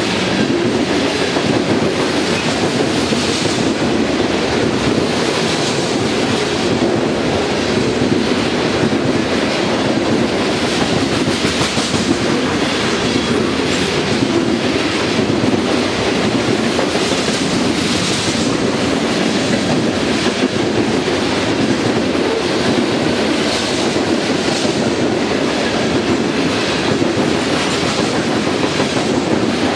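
Freight train of covered hopper cars rolling past at speed: a steady rumble of steel wheels on rail with a continual clickety-clack of the wheels striking rail joints.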